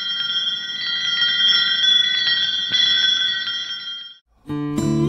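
Bell-like chimes ringing together at several high pitches, held steadily and cut off suddenly about four seconds in. Just before the end, after a short gap, plucked acoustic guitar music begins.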